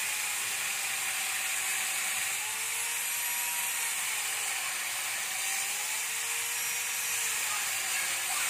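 Cheap small electric chainsaw running while it cuts a tree branch: a steady whirring, rattly chain with a motor pitch that sags and recovers every second or two as the cut takes the load.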